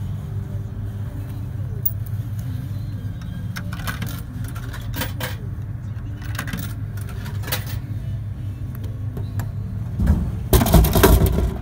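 Drinks vending machine taking payment and dispensing: a few sharp clicks as a bill is fed into the acceptor, then a loud clatter about ten seconds in as the bottle drops into the delivery bin, over a steady low hum.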